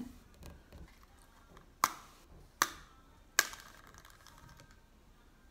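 Three sharp clicks a little under a second apart, the last with a short ringing tail, from handling and flicking the Bean Boozled spinner wheel.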